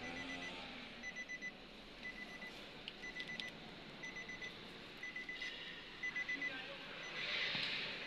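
Electronic beeper sounding in quick groups of about four short high beeps, a group roughly once a second. A brief rustle near the end.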